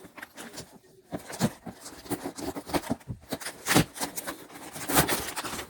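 Packaging being handled and opened: crinkling and rustling with a run of small clicks and taps, and two louder crackles, one a little before four seconds in and one about five seconds in.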